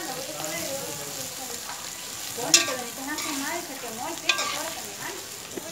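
Metal spoon stirring shredded turtle meat as it fries in lard in a heavy pot: a steady sizzle with scraping and a couple of sharp clinks of the spoon against the pot, about two and a half seconds in and again a little after four seconds.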